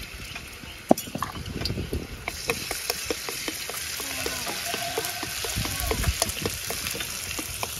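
Chopped scallion bulbs sizzling as they fry in hot oil in a pan, with the clicks of a utensil stirring against the pan. The sizzle grows louder about two seconds in.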